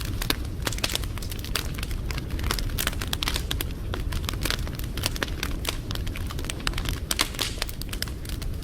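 Wood fire crackling, with a dense run of irregular sharp pops and snaps over a low rumble.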